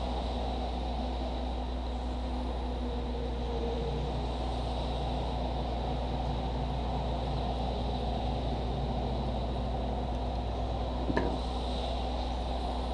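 Steady low hum and hiss of background noise, with a single brief click about eleven seconds in.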